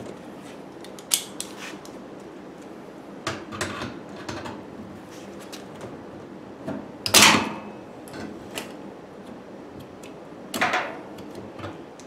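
A handful of scattered metal clicks and clanks as locking pliers grip and work a washing machine's suspension rod, with a louder clatter about seven seconds in.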